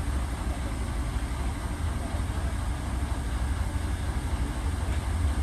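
Steady low rumble of heavy diesel machinery running.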